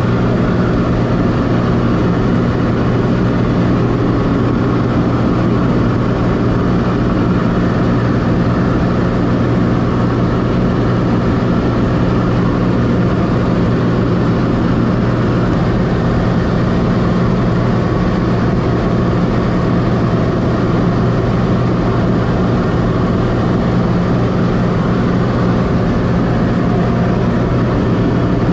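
Light aircraft's engine and propeller droning steadily, heard inside the cabin in flight.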